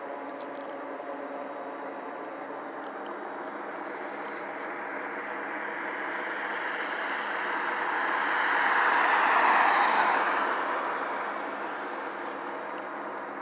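Steady drone of a helicopter circling overhead, with a vehicle going past on the road that swells to its loudest about nine to ten seconds in and then fades.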